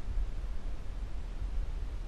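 Wind buffeting the microphone: a low, uneven rumble with a faint steady hiss.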